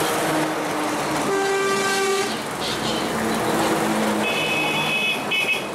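Vehicle horns honking over street traffic noise: one horn sounds for about a second, a little over a second in, and a higher-pitched horn gives several short blasts near the end.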